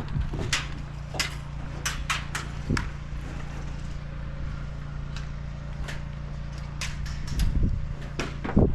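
Scattered sharp cracks and clicks of airsoft gunfire and BBs striking cover, irregular and spaced out, over a steady low rumble. A few heavier thuds come near the end.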